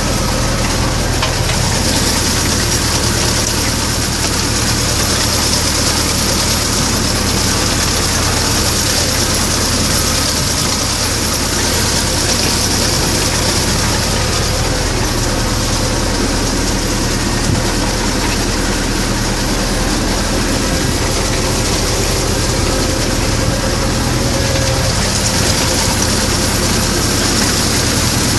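Zetor 7211 tractor's four-cylinder diesel engine running steadily while working in the hay field, with a steady high hiss over the low engine drone.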